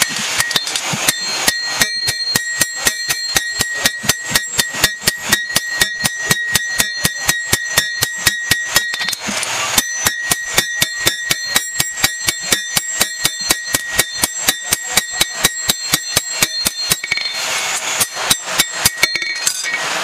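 Hand hammer forging a steel blade held in tongs on an anvil: rapid, even blows about four a second, each with a bright metallic ring from the anvil. There is a short break about nine seconds in, and the blows come more unevenly near the end.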